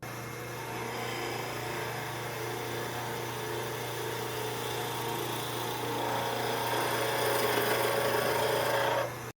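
Tormek T-8 sharpening machine running with a steady motor hum while a skew chisel is ground against the turning wheel, a rasping hiss over the hum. The grinding grows louder over the last few seconds and the sound cuts off abruptly.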